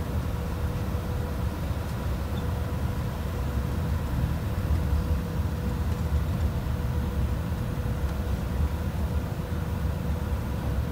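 Train running slowly, heard from inside the driver's cab: a steady low rumble from the engine and running gear, with a faint steady whine over it.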